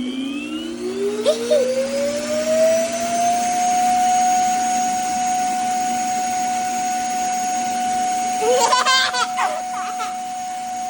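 Roomba AutoEmpty dock's suction motor emptying the robot's dustbin: a loud whine that rises in pitch over about three seconds, then runs steady. A brief high voice cuts in near the end.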